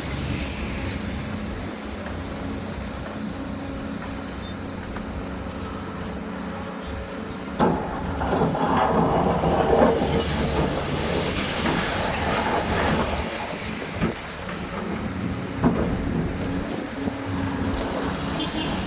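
Excavator's diesel engine running steadily under a working clatter. The working noise grows louder about halfway through, with several sharp metallic knocks.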